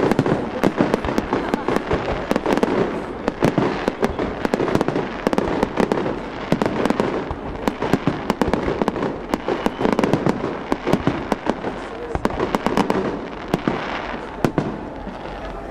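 Aerial fireworks shells bursting in quick succession, with many sharp crackles and bangs following one another without a break.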